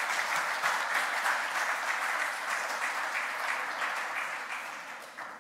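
Audience applauding: many hands clapping steadily, fading out near the end.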